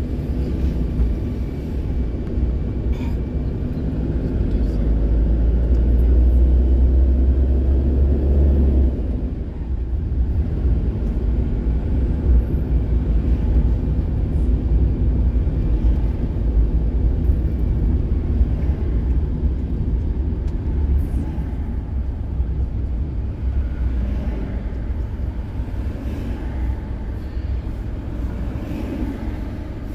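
Car driving, its engine and tyre noise heard inside the cabin as a steady low rumble. The rumble grows louder a few seconds in and drops back about nine seconds in.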